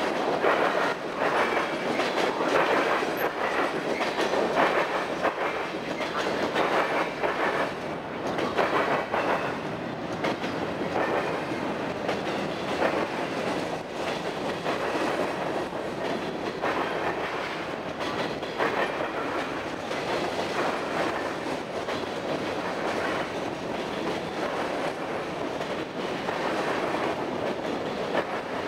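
Freight cars of a mixed freight train rolling past close by: a steady rumble of steel wheels on rail with repeated clicking as the wheels cross the rail joints.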